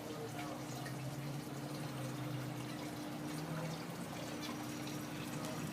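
Water trickling steadily over a low, steady hum, with a few faint clicks.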